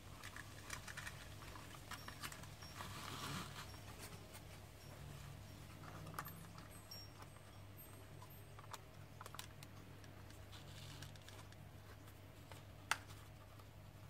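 Faint clicks, taps and rustling of a seat belt retractor and its webbing being handled and turned over, with one sharper click near the end, over a steady low hum.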